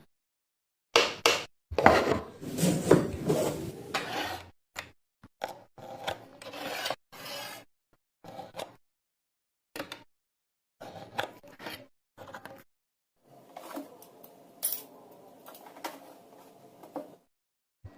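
Wood being worked by hand, scraping and rasping in short irregular strokes, with abrupt cuts to silence between bursts; the strongest stretch of strokes comes a couple of seconds in.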